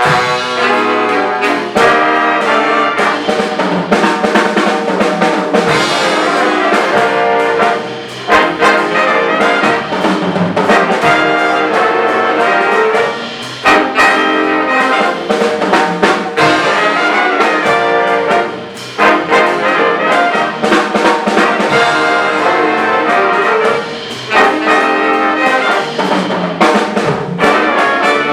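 High school jazz big band playing a swing chart, with trumpets and trombones out front in loud ensemble phrases that break off for an instant about every five to six seconds.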